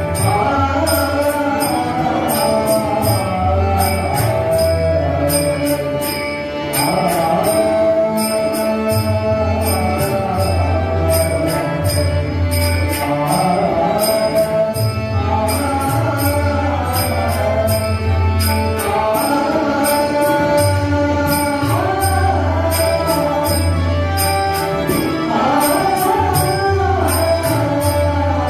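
Abhang devotional music with tabla playing a steady rhythm and bright jingling metal percussion on the beat, under a wavering melodic line.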